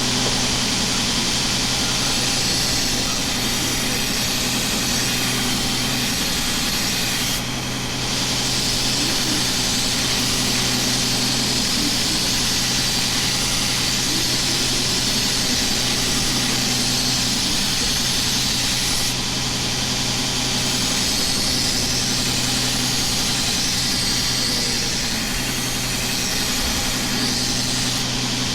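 Motor-driven knife sharpener running steadily, its motor humming under the hiss of steel being ground on the stone. The grinding hiss drops out briefly a few times, as the blade comes off the wheel.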